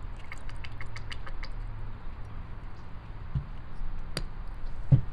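Glass sauce bottles handled over a drinking glass: a quick run of light clicks in the first second and a half, then a few knocks as the bottles are set down on the table, the loudest near the end, over a low steady hum.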